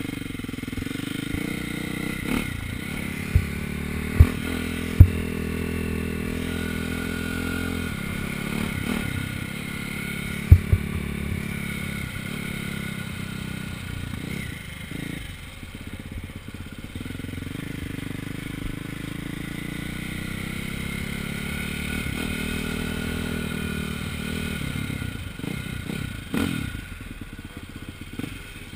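KTM dirt bike engine running under way, its revs climbing and dropping again and again as the bike accelerates and shifts. A few sharp knocks in the first ten seconds or so are the loudest sounds.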